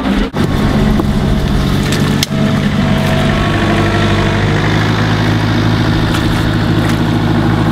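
Hydraulic excavator's diesel engine running steadily, with a brief dip in the sound twice, near the start and about two seconds in.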